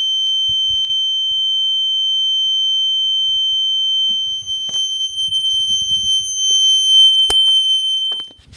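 System Sensor P2RL horn strobe sounding a loud, steady continuous tone of about 3 kHz on its high-volume setting. There is a sharp click about seven seconds in, and the tone cuts off shortly before the end.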